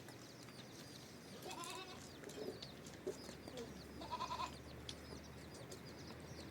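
Goats bleating twice, about one and a half and four seconds in, with small birds chirping quickly throughout.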